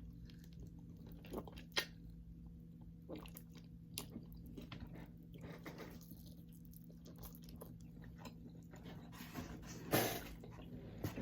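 Close-up chewing and biting of a fried chicken wing: scattered wet smacks and crunches, with a louder stretch of chewing near the end. A faint steady low hum sits underneath.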